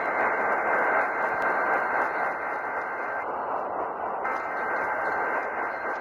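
AM radio static hissing steadily from a Sangean portable radio's speaker, with a faint steady whistle that drops out for about a second in the middle.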